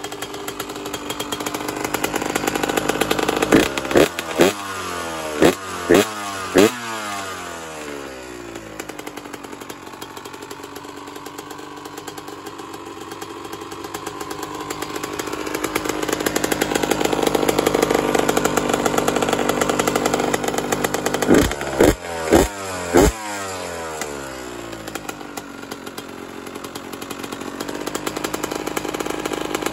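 2001 Honda CR125R's single-cylinder two-stroke engine running after a new top-end rebuild with a Wiseco piston, being revved. It gives about five sharp throttle blips a few seconds in, each falling back, then a slower rise and fall in revs, then another four quick blips about two-thirds of the way through.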